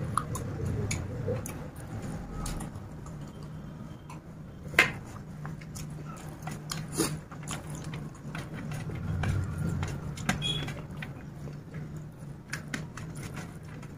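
Fingers mixing and scooping chicken biryani rice on a steel plate, with scattered clicks and taps, the sharpest about five seconds in, over a steady low hum.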